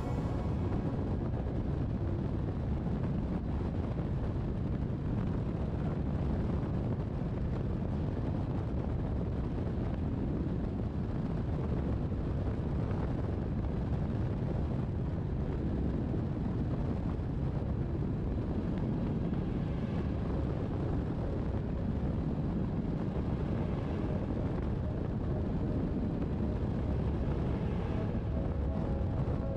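Steady wind noise rushing over the microphone of a camera mounted on a hang glider in flight.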